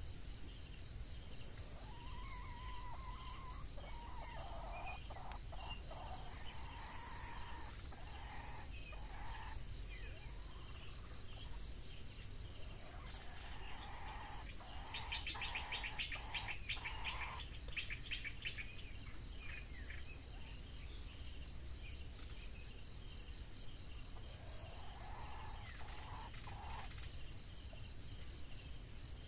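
Red junglefowl calling several times over a steady high-pitched insect drone, with a quick run of rapid clicking notes about halfway through.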